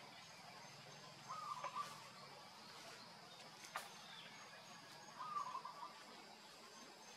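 Wild forest ambience: a bird gives a short warbling call twice, about four seconds apart, over a steady pulsing insect chirp, with a couple of faint clicks in between.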